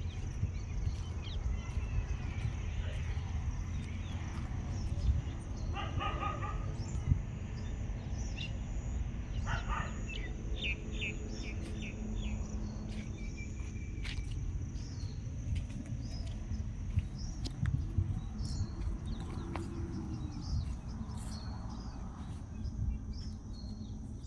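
Birds chirping here and there over a steady low rumble.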